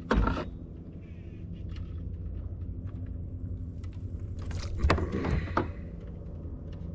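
A small motor hums steadily while trolling, with a short knock at the start and a brief clatter about five seconds in.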